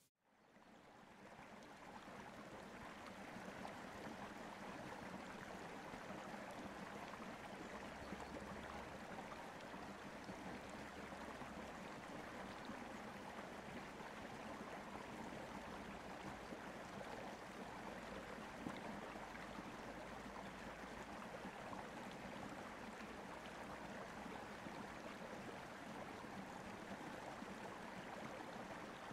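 Steady, even rushing noise like a running stream, fading in over the first two seconds and then holding unchanged.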